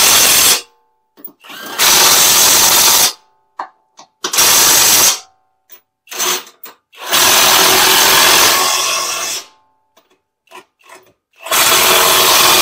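Cordless 3/8-inch 20V brushless impact wrench (Hercules) running in repeated bursts of about one to two seconds, with short trigger blips between, as it runs up and tightens the bolts on a new front control arm.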